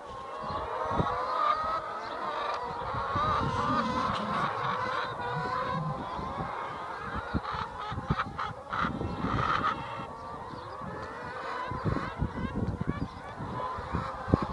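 A flock of free-range laying hens calling together: a steady chorus of many overlapping clucks and squawks.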